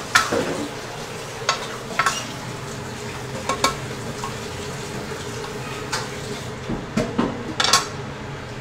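Metal ladle stirring a wok of chicken and shiitake mushrooms in sauce, scraping and clinking against the pan about eight times, over a steady sizzle from the pan.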